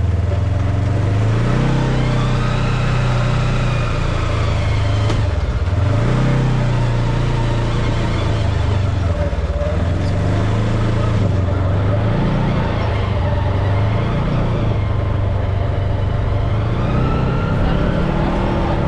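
Polaris RZR side-by-side UTV's engine running as it drives along a dirt trail, its pitch rising and falling several times as the throttle is worked.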